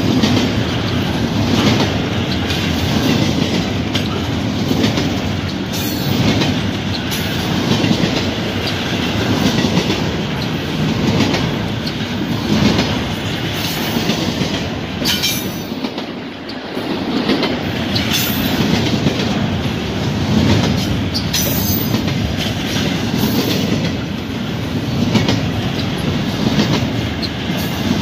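Double-stack container train's well cars rolling past at close range: a steady rumble of steel wheels on rail that swells and eases as the cars go by, with sharp clacks from the wheels every second or two.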